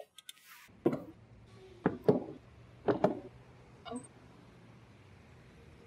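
Heavy knocks at a door: a single knock, then two quick pairs and a lighter last knock, irregularly spaced over about three seconds. A few small clicks come just before, and a low steady hum sits underneath.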